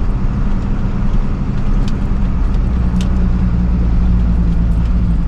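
A motor vehicle's engine running steadily with a low, even drone.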